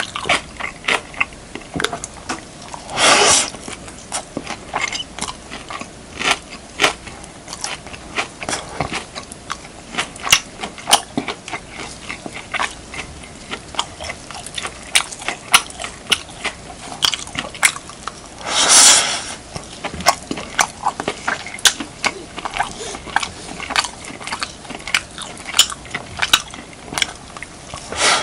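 Close-miked eating sounds of beef, kimchi and rice being chewed: a dense run of wet mouth clicks and smacks, with two longer rushing noises about 3 seconds and 19 seconds in.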